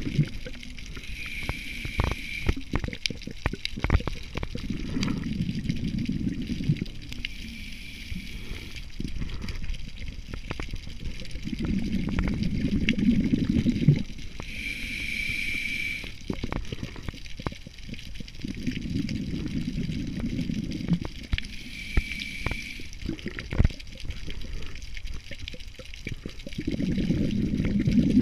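Scuba diver breathing through a regulator underwater: a short hiss at each inhale, then a few seconds later a low rush of exhaled bubbles, about four breaths in all. Scattered sharp clicks throughout.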